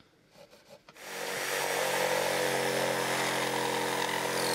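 Electric power saw cutting a notch into a wooden floorboard. It starts about a second in and runs at a steady speed.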